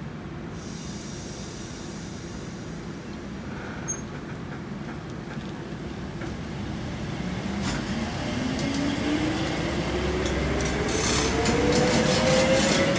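Vy Class 69 electric train pulling away from the station. A steady low hum gives way, about halfway through, to a traction-motor whine that rises steadily in pitch as the train gathers speed, growing louder toward the end with wheel clicks over the rails.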